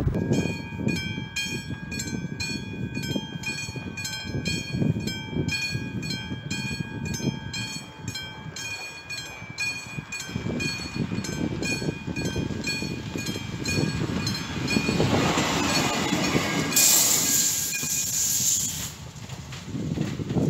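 Level-crossing warning bell ringing in rapid, regular strikes while the crossing is closed. Near the end a train passes with a few seconds of loud rushing noise, and the bell stops just after it.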